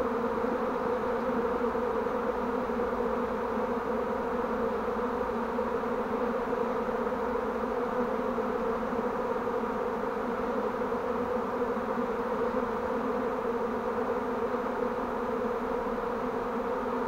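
A honeybee swarm buzzing at close range, a dense steady hum of many bees flying around and clustering on a swarm box as they are being hived.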